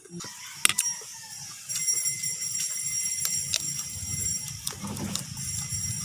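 Scattered sharp clicks and taps. A low engine-like rumble builds in the second half, as of a motor vehicle running close by.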